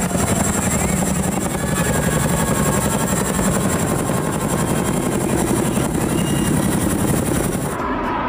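Boeing CH-47 Chinook tandem-rotor helicopter hovering, its two rotors making a rapid, steady chop. Near the end the sound cuts off and gives way to a jet aircraft's engine noise.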